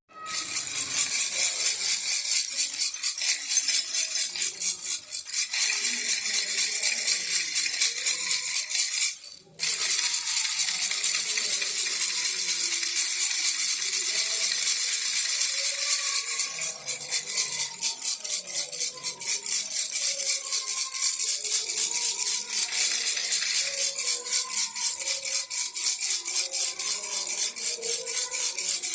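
Baby rattle shaken rapidly and continuously, a dense bright patter of beads inside, with a brief pause about nine and a half seconds in.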